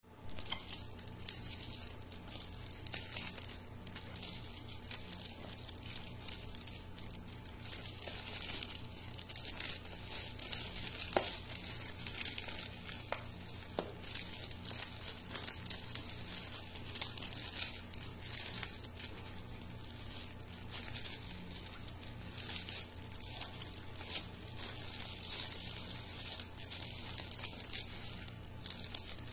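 Glossy plastic-coated gift wrap crinkling irregularly as it is folded, creased and pressed flat around a box by hand.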